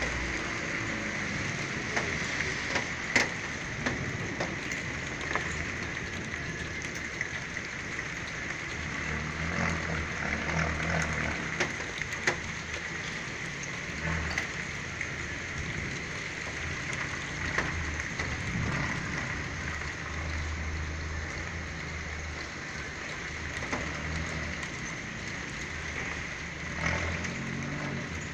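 Steady rain falling and pattering on surfaces, with a few sharp drip ticks. Low rumbles swell and fade several times.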